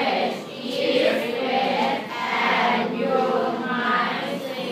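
A class of schoolchildren reading an English sentence aloud together in unison, repeating a safety rule after a recording.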